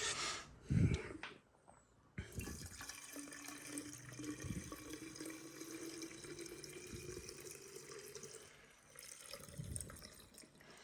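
Two-stroke petrol-oil mix being poured from a bottle into a chainsaw's fuel tank: a steady trickling pour that starts about two seconds in and stops about nine seconds in. A short knock comes just before it.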